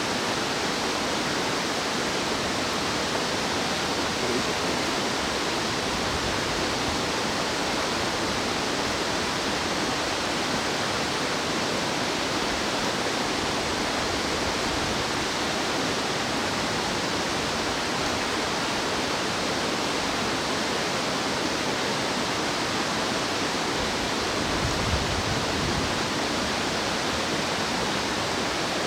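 Fast-flowing stream rushing steadily, a constant white-water hiss.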